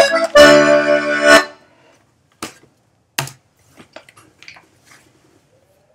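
Button accordion playing the final chord of a slow tune, which stops about a second and a half in. Then a few scattered clicks and light knocks as the accordion is handled and lowered.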